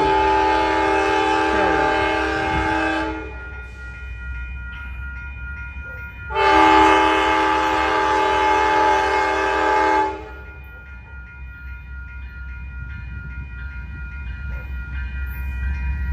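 Amtrak P42DC diesel locomotive's multi-chime air horn: a long blast that ends about three seconds in, then a second long blast from about six to ten seconds in. Under the horn is the low rumble of the approaching train, which grows louder near the end.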